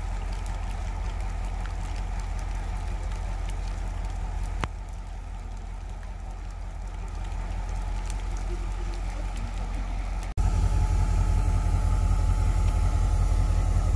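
EMD GL18B locomotive's V8 645 diesel engine running with a steady low throb, jumping suddenly louder about ten seconds in, in heavy rain.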